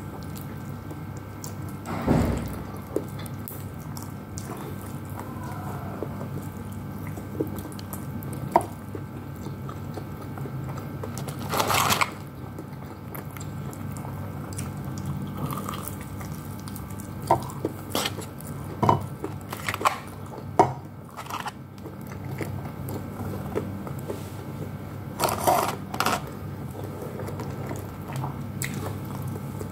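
Close-up eating sounds of a person eating rice and fried chicken by hand: chewing with small wet mouth clicks, and a few short louder noisy bursts about two seconds in, about twelve seconds in and twice in quick succession later on, over a steady low hum.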